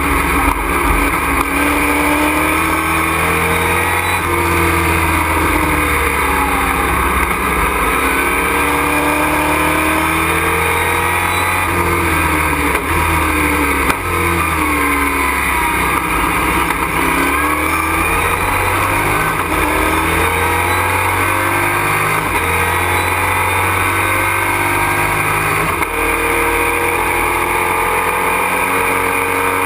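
Race truck's engine heard from inside the cab at full race volume, its pitch repeatedly climbing under acceleration and dropping at shifts and braking as it laps the circuit.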